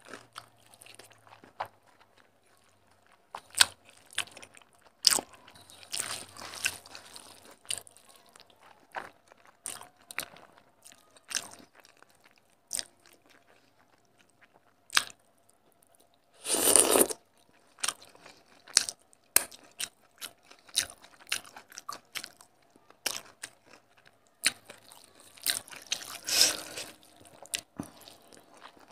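Eating by hand: fingers mixing and scooping rice with chicken curry on a steel plate, with wet chewing and crunching. The sounds come as many short clicks and crackles, with a louder burst about halfway through and another near the end.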